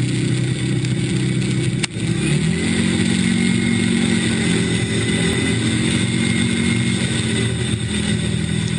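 Speedboat's boosted engine running hard at speed. Just before two seconds in, the sound dips briefly with a click, then the engine note steps up in pitch and holds steady.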